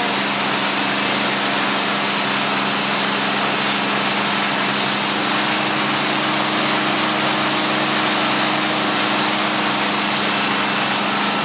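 Wakeboard tow boat's engine running steadily at speed, a constant low drone under the rushing hiss of the churning wake.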